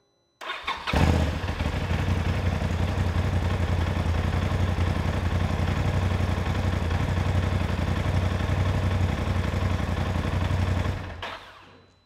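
Polaris RZR's engine starting and idling steadily for about ten seconds, then shut off, winding down near the end. It starts without the brake pedal held because the brake pressure switch is jumpered out.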